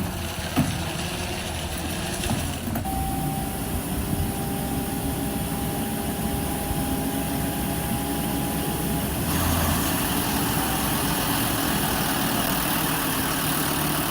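Skid steer engine running steadily, with a steady whine through the middle and a brighter hiss joining about nine seconds in.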